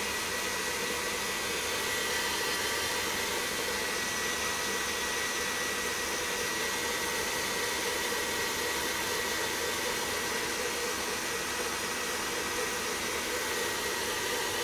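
KitchenAid Heavy Duty stand mixer running at high speed, its wire whisk beating egg whites and sugar into a firm meringue: a steady motor whir with a thin, high whine.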